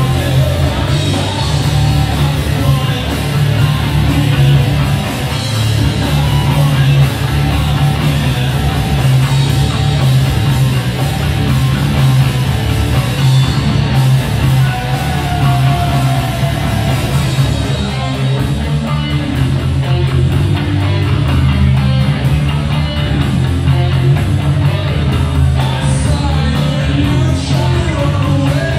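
Live rock band playing loud and without a break: electric guitars and a drum kit.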